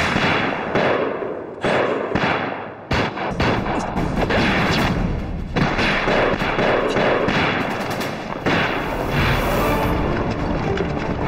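Film battle soundtrack: repeated gunfire and explosions over dramatic background music.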